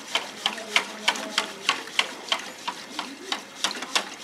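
Wire balloon whisk beating thin ghevar batter of flour, ghee and chilled water in a metal bowl, the wires clinking against the bowl about three times a second in a steady rhythm.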